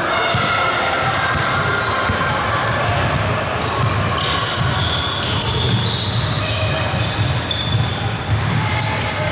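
Basketball game sounds in a gym: a ball bouncing on the court, many short high squeaks, and players' voices in a reverberant hall.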